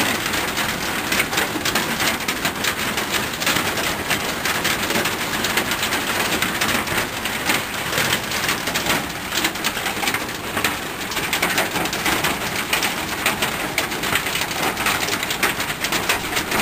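Hail and rain pelting down in a steady, dense clatter of countless small impacts.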